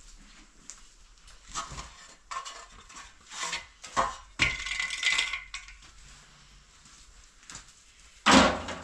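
Wooden boards knocking and clattering against each other and the wall as they are handled, with a longer scrape about halfway and a loud knock near the end.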